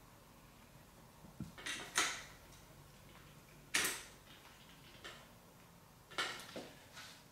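Handling clicks and knocks from a tripod head being adjusted by hand: about six separate sharp clicks, irregularly spaced, the loudest about two seconds in.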